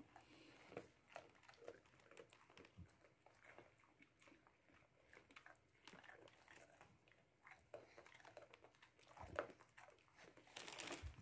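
Faint chewing and crunching of a dog working on a dried fish-strip treat, with scattered small clicks of teeth and a couple of louder bites near the end.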